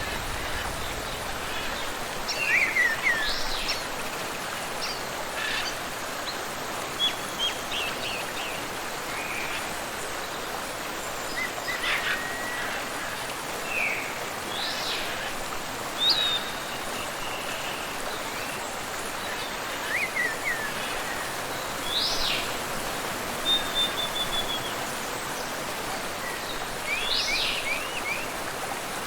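Steady rush of flowing water, with birds chirping and calling at intervals over it: short chirps, quick sweeps and a brief trill.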